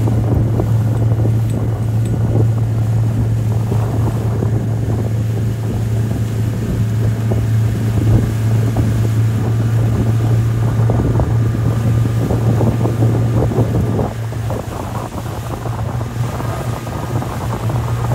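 A speedboat's outboard motor running steadily at speed as it tows, a constant low drone, with wind buffeting the microphone and the rush of the wake.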